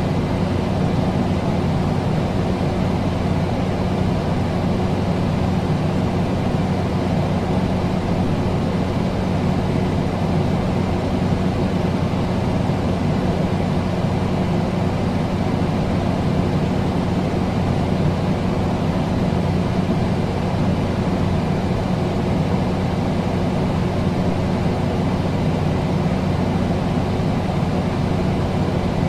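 Electric fan running steadily: an even rush of moving air with a low, constant motor hum beneath it.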